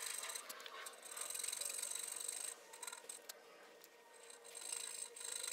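Coping saw cutting out the waste between dovetail tails in a wooden board, a fine rasping stroke after stroke. The sawing pauses for about a second and a half just past the middle, then starts again.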